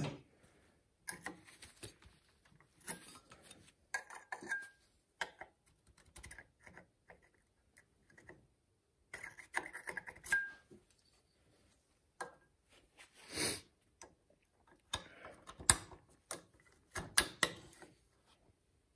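Hand tools and small metal parts being handled on the dumper's frame: irregular clicks, clinks, rattles and short scrapes with brief pauses, the sharpest clinks near the end.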